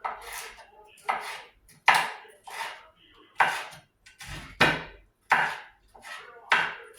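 Kitchen knife chopping seasoning vegetables on a cutting board: about ten separate strokes at an uneven pace, each one sharp with a short fading tail.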